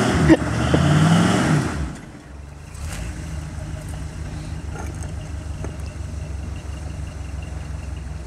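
Off-road vehicle's engine revving hard under load, its pitch climbing twice in the first two seconds, then dropping back to a steady idle.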